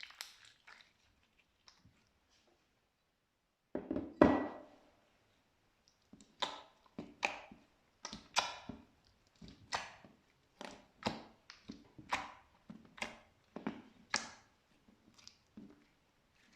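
Slime being squished and pressed by hand: a run of short squelching, crackling sounds. A loud one comes about four seconds in, then they repeat roughly one or two a second.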